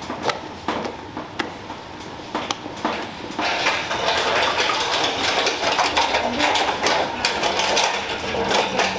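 A spatula knocking and scraping against a large stainless steel mixing bowl of cake batter. About three and a half seconds in, a metal trolley carrying the bowl starts rattling steadily as it is pushed across the floor.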